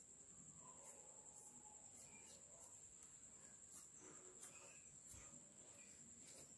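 Near silence: quiet room tone with a faint, steady high-pitched whine.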